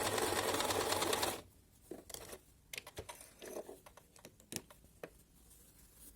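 Domestic sewing machine running steadily as it sews an overcast stitch, stopping abruptly about a second and a half in. It is followed by scattered light clicks and taps.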